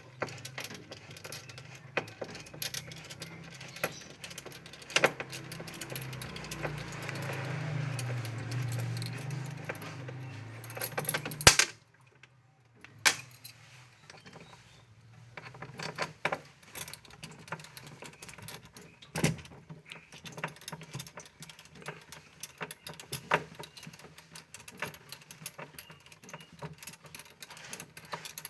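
Irregular clicks, taps and clinks, typical of frost and ice being chipped and knocked loose from a freezer compartment during defrosting. A low hum swells in the first half, then stops with a sharp knock about eleven and a half seconds in.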